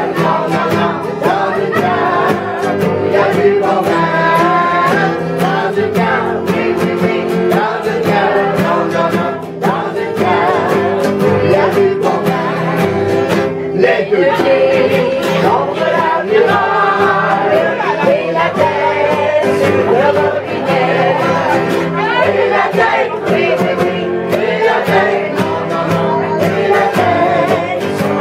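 Several voices singing a song together to acoustic guitars strummed in a steady rhythm.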